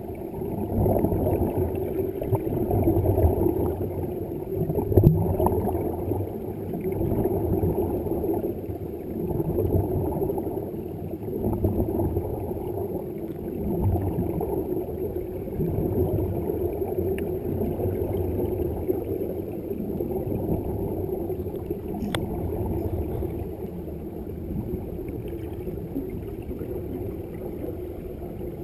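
Muffled underwater rumble and gurgling picked up by a submerged camera, swelling and fading every couple of seconds, with one faint click about 22 seconds in.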